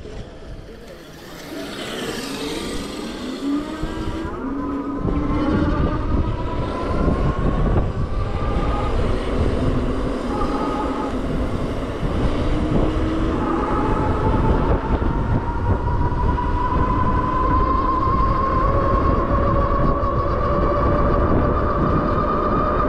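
The electric motor of a personal electric vehicle whines while riding, its pitch climbing slowly as it speeds up, then climbing again after a short break. Heavy wind rumble on the microphone builds after a quieter, slower first few seconds.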